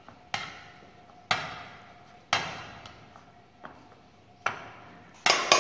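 Metal potato masher striking the bottom of a stainless steel frying pan as boiled potatoes are mashed: sharp clanks about once a second, each ringing briefly, with two in quick succession near the end.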